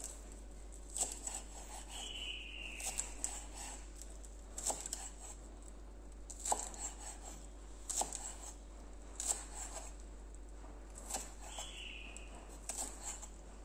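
Kitchen knife chopping green onions on a wooden chopping board: irregular sharp taps of the blade on the board, about one a second, some in quick pairs. Twice, a short high call from an animal sounds in the background.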